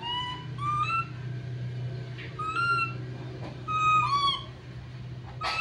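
Baby monkey crying out in fear, about six short high calls that rise and fall, some in quick pairs.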